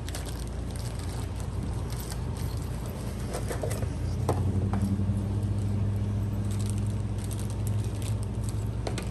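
Boxes of stock being opened and handled, with light rustles and clicks, over a steady low hum that grows louder about four seconds in.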